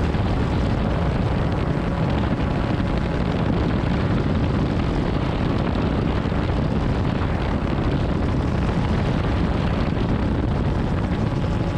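Titanium gyroplane in flight: engine and propeller droning steadily while climbing after takeoff, mixed with heavy wind rush over the open cockpit.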